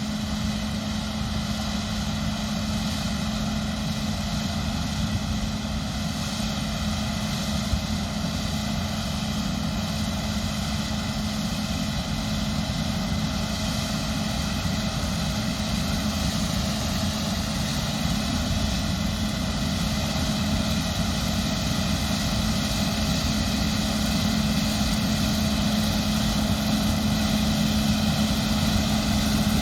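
Combine harvester running steadily in the field, its engine and threshing gear giving a constant drone with a strong low hum, slowly growing a little louder toward the end.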